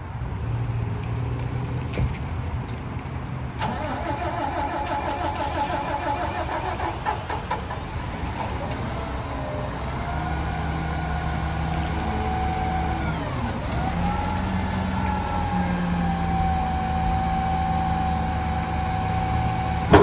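McNeilus garbage truck's engine running, coming up to a higher, louder speed suddenly about four seconds in and holding there with a steady whine. Its pitch dips and climbs back about two-thirds of the way through.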